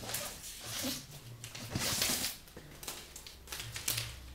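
Plastic treat packets and a cardboard box rustling and crinkling as they are handled, in several short bursts, the loudest about halfway through.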